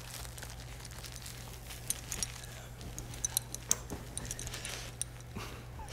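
Great Dane puppy mouthing and tugging a plush toy: soft scattered crinkles, rustles and small clicks over a steady low hum.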